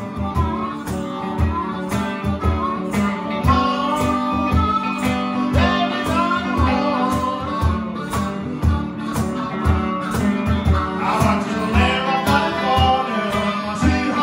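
Live blues band playing: a harmonica played into a microphone wails over a semi-hollow electric guitar, and a man sings. A cajón keeps a steady beat of low thumps underneath.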